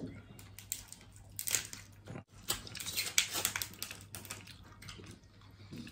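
Boiled lobster shells being cracked and picked apart by hand, with irregular small crackling clicks and crunches, along with eating sounds.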